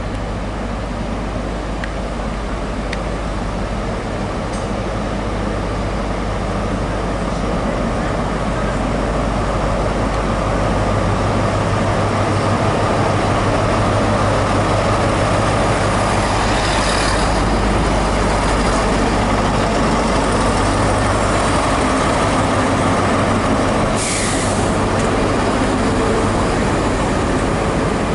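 Class 43 InterCity 125 power car's MTU diesel engine running with a steady low hum, louder as the train draws into the platform, then idling as it stands. Short hisses of air come about two-thirds of the way through and again near the end.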